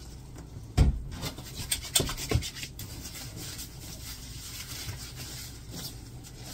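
Hands scrubbing shampoo into a wet dog's coat: a rubbing, scrubbing sound of repeated strokes. A few sharp knocks come in the first couple of seconds, the loudest about a second in.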